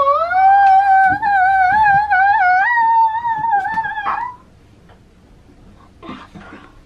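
A young girl singing one long, wavering 'aaah' note that slides up at the start, is held, and cuts off about four seconds in.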